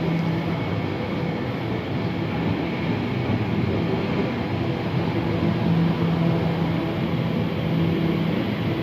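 Train running, a steady rumble with a low hum that fades out about a second in and comes back for the second half.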